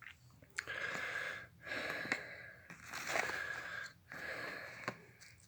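A person breathing hard and rhythmically, about one breath a second, with a slight wheezy whistle in each breath: the heavy breathing that follows the effort of spinning a hand drill to an ember.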